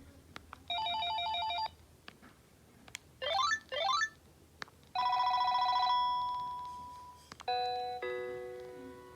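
Panasonic KX-TGA410 cordless phone handset playing several short ringtones one after another. First an electronic trilling ring, then two quick rising chirps, then a held chord that fades out and a set of falling tones that also fade. Short clicks come between them.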